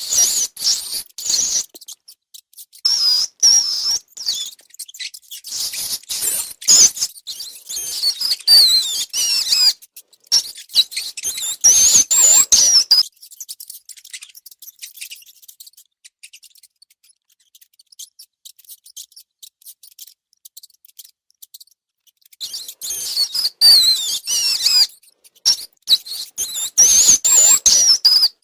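Rats squeaking: rapid high-pitched squeaks and chirps with quick up-and-down pitch slides, mixed with small clicks and scratches. The squeaking comes in two busy stretches with a sparse, quieter spell of several seconds in the middle.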